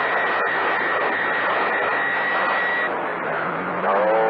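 CB radio receiving on channel 28, giving out loud steady static: a hiss with a steady high whistle that stops about three seconds in. Near the end a voice starts to come through the noise.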